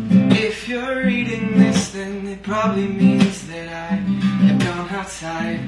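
Acoustic guitar strummed in a steady rhythm, changing chords, while a man sings over it.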